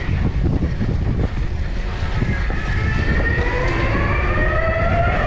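Steady rumble of a cyclocross bike's knobby tyres on dirt and wind buffeting the microphone while riding. From about two seconds in, a pitched whine slowly rises in pitch.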